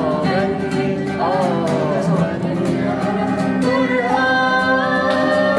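Singing of an Arabic song over instrumental accompaniment: voices with gliding, ornamented notes, then long held notes in the second half.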